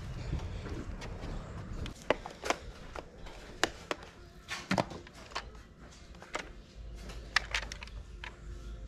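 Irregular light clicks and knocks, a dozen or so over several seconds, from items being picked up and handled on a sale table, over a low rumble.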